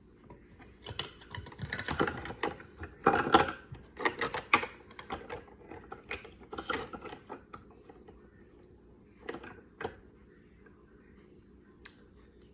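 Hard plastic parts of a Pentair Racer pool cleaner clicking and rattling as a new drive shaft and gear are threaded through the housing by hand. A dense run of clicks fills the first several seconds, followed by a few scattered clicks.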